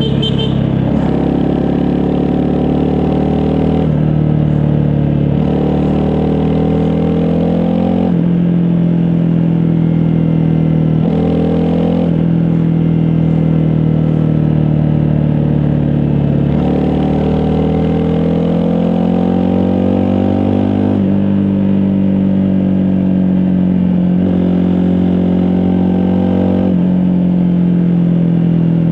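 Honda CRF250 Rally's single-cylinder four-stroke engine under way, its pitch climbing and then dropping sharply several times as the rider accelerates and shifts gears.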